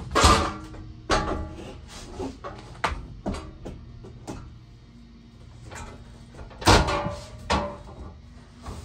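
Knocks and clunks of a metal electronic safe being fitted into a wooden 2x4 closet frame, two loud bangs standing out, one just after the start and another about two-thirds of the way through.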